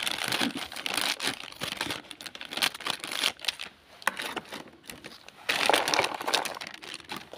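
Plastic snack packet crinkling as it is cut open with scissors and handled, then shaken so the fried snack sticks pour out into a plastic tray. It comes in irregular bursts, with the loudest spell about five and a half seconds in.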